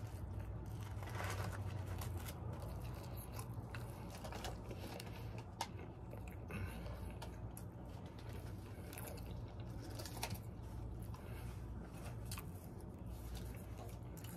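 Scattered crinkling and rustling of a fast-food burger's paper wrapper being handled, with soft chewing, over a steady low hum.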